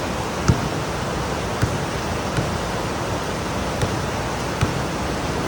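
Heavy rain pouring steadily, an even hiss, with five brief sharp taps standing out over it.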